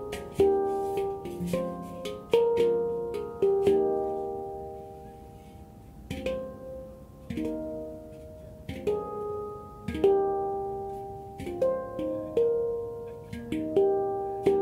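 F minor handpan played by hand: single struck notes that ring on and die away, at times overlapping. Around the middle the notes fade to a lull before the playing resumes.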